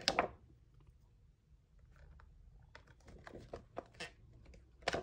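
Scattered light clicks and taps of clear resin stamps being handled and set down on the plastic storage sheet of a clear plastic stamp case, with a sharper click right at the start and several more in the last two seconds.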